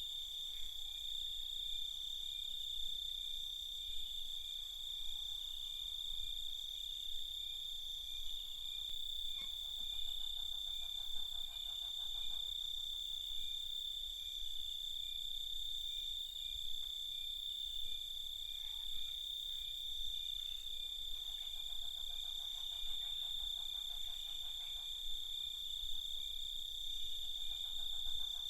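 Night chorus of crickets chirping continuously in one steady high trill, with fainter, higher insect tones above it. Stretches of lower, rapidly pulsed calls come and go three times.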